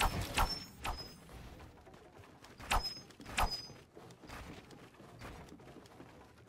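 Several sharp bangs at uneven intervals: a quick pair at the start, another about a second in, and two more close together around three seconds in, over a low background hiss.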